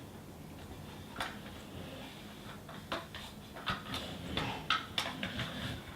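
A few light, scattered clicks and taps of a plastic toy dump truck being handled.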